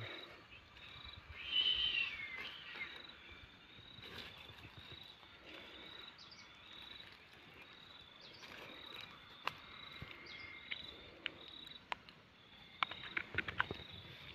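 A steady, high insect chirring carries on throughout, like crickets. About two seconds in, a short chirping call sweeps down in pitch and is the loudest sound. Small sharp clicks and rustles come now and then, most of them near the end.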